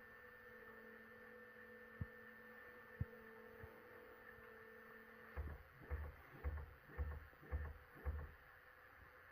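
Bambu Lab P1P 3D printer running its first calibration: a faint steady motor hum with two sharp clicks, then, from about five seconds in, six low throbbing pulses at about two a second.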